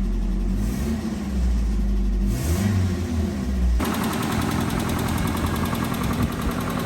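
1997 Nissan D21 pickup's engine running, its pitch rising and falling once about halfway through. From just past halfway a rapid, rough popping clatter takes over, a sound that doesn't sound healthy.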